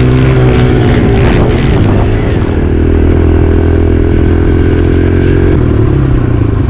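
Dirt bike engine running at a steady speed. Its pitch holds for a few seconds at a time and shifts about half a second in and again around two seconds in.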